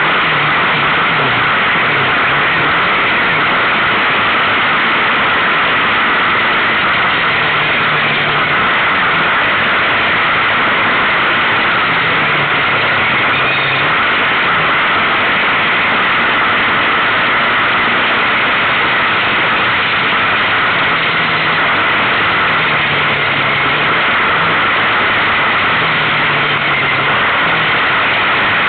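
Kawasaki KFX700 quad's V-twin engine, its pitch rising and falling as the throttle is worked while riding fast over a bumpy dirt track, under a constant loud rush of wind and track noise.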